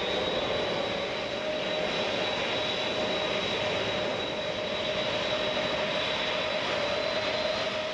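Lockheed C-5 Galaxy's turbofan jet engines running on the ground: a steady rush of engine noise with a high, even whine and a lower steady hum over it.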